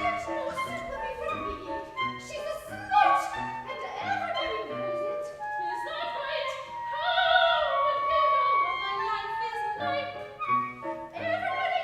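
Soprano singing an operatic aria over instrumental accompaniment of short, evenly repeated notes; the voice holds long notes with vibrato in the middle.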